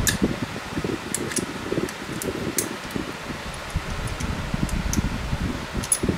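Electric pedestal fan blowing air across the microphone, a steady gusty rumble. A few light metallic clicks come through as a C-clamp is screwed in to push a brake caliper piston back into its bore.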